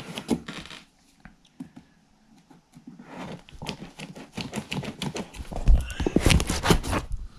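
Packaging of a rifle parts kit being handled and opened: a string of irregular knocks, scrapes and rustles, sparse at first and busier in the second half, with heavier thumps near the end.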